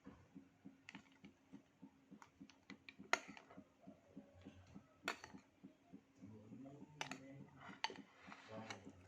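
Faint scattered clicks and taps of a spoon against a bowl of durian and mung bean porridge, with a few sharper clicks, over a low steady hum.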